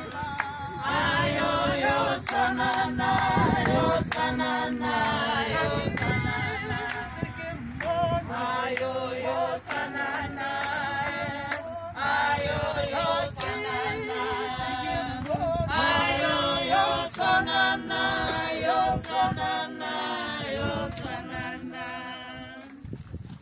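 A group of voices singing together unaccompanied, one sung phrase after another, the singing dying away near the end.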